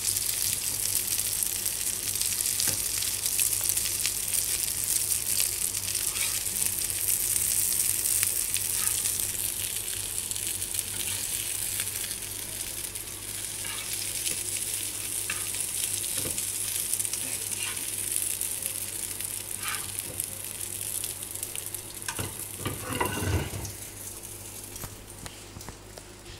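Potato and chicken cutlets shallow-frying in a little oil in a nonstick pan: a steady sizzle with crackles. The sizzle thins out toward the end, with a brief louder noise shortly before.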